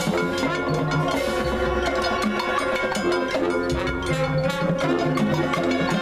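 High school marching band playing its field show: brass holding sustained chords over mallet percussion and drums.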